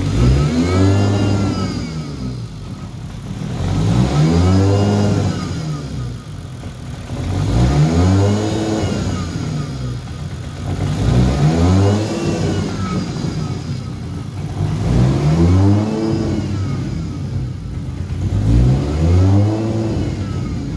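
Straight-piped, turbocharged Toyota 2JZ inline-six running at idle, its revs rising and falling six times, about every three and a half seconds. The idle is hunting while its standalone ECU tune is still being adjusted to smooth it out.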